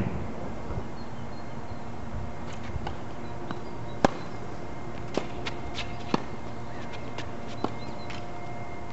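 Tennis ball being hit with racket strings and bouncing on a hard court during a rally: one sharp crack about four seconds in, the loudest, then fainter hits and bounces roughly a second apart, over a steady low rumble.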